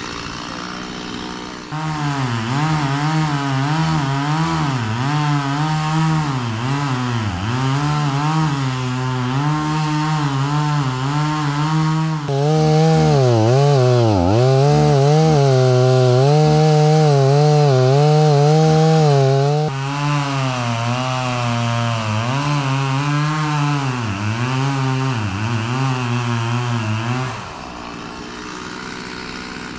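Two-stroke chainsaw idling briefly, then revving up about two seconds in and cutting wood, its engine pitch dipping and recovering over and over as it bogs under load in a dead white oak. A louder, steadier stretch comes in the middle, and the saw drops back to idle near the end.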